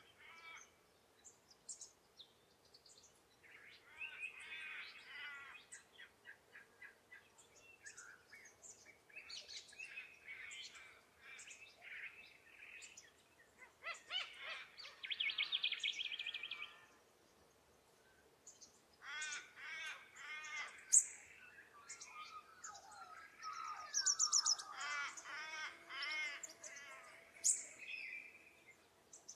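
Several Australian woodland bird species calling over one another: bouts of quick repeated arching notes and chatter, busiest in the second half. One sharp high note about two-thirds of the way through is the loudest call.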